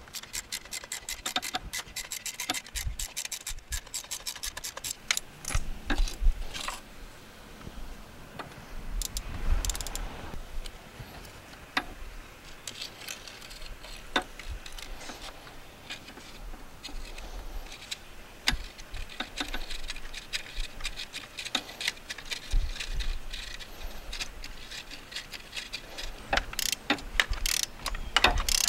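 Ratchet wrench clicking in quick runs as a spark plug is turned out through an extension and universal joint, with metal tool knocks and scraping in between. Rapid ratchet clicking comes again near the end.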